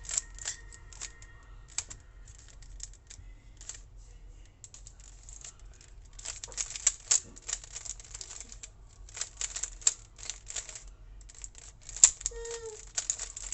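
Plastic Rubik's cube layers being turned quickly by hand: runs of rapid clicking and rattling in several bursts, with short pauses between them, as the middle-layer edges are solved.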